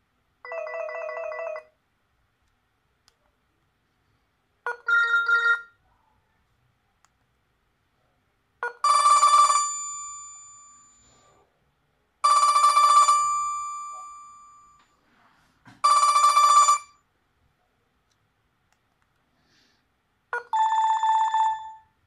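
Itelco IT2500 mobile phone playing short ringtone previews from its speaker, six different tunes in turn with pauses between them. Two of them fade out slowly over a couple of seconds.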